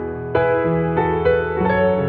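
Soft background piano music, single notes struck in a slow, gentle melody.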